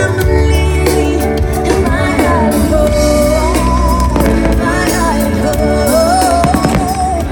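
Music: a song with a singing voice over a band, with a steady bass line.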